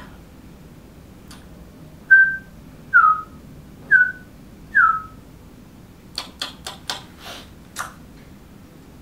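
Four short whistled bird peeps, about one a second, each dipping slightly in pitch: a person whistling in imitation of a caged bird. They are followed by a quick run of sharp clicks.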